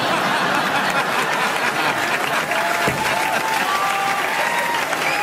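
Studio audience applauding, a steady dense wash of clapping.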